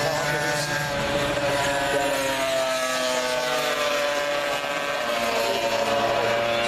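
Classic racing motorcycles passing through a corner one after another at high revs, several engine notes overlapping. One engine's note falls in pitch as it goes by, around the middle.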